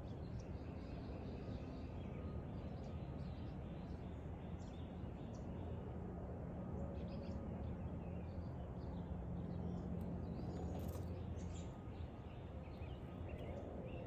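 Backyard ambience: small birds chirping here and there in the background, more often in the second half, over a steady low rumble.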